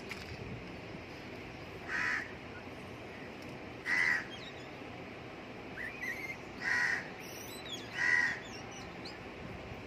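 A crow cawing, single caws repeated four times at intervals of about two seconds. Faint chirps from small birds come in near the middle.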